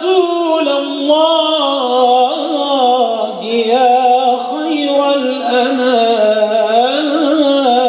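A man singing an unaccompanied Arabic religious nasheed, one long melismatic phrase with the voice winding up and down in pitch, ending near the end.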